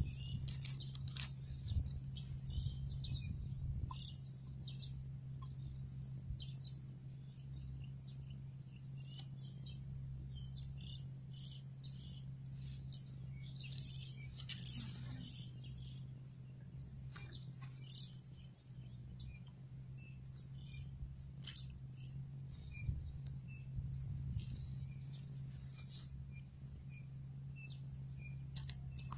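Birds chirping and calling on and off, short high chirps scattered throughout, over a steady low hum.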